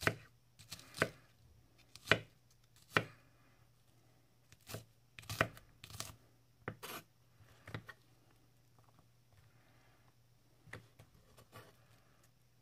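Böker Outdoor Cuisine III santoku knife chopping red onion, the blade knocking on an end-grain wooden cutting board. Separate chops come about a second apart, then a quicker run midway, and a few fainter taps near the end.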